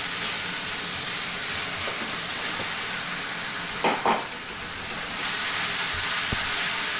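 Chicken pieces and shredded carrot sizzling in oil in a frying pan. About four seconds in, two brief louder sounds as a heap of mushrooms goes into the pan, and the sizzle turns fainter for a moment before picking back up.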